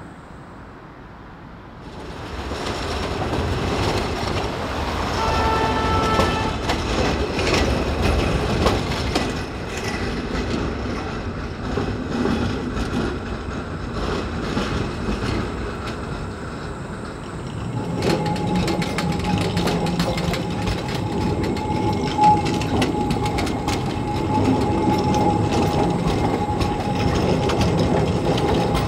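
Škoda 15T low-floor tram pulling away and passing close by, its motors and wheels rumbling on the rails with frequent sharp clicks over the track. From about two-thirds of the way through, a steady wheel squeal rings out as it rounds a curve.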